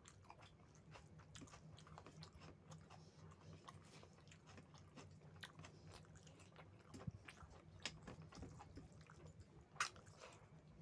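Faint chewing and mouth sounds of someone eating rice with chicken curry: scattered soft wet clicks and smacks, with a sharper click near the end. A low steady hum runs underneath.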